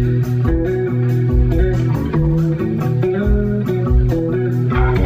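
Instrumental jam: electric guitar playing held melodic notes over electric bass, with percussion keeping a steady beat.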